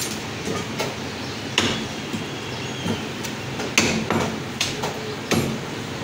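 Meat cleaver chopping a lamb leg on a wooden log chopping block: irregular sharp chops, the loudest about one and a half, four and five and a half seconds in, over steady background noise.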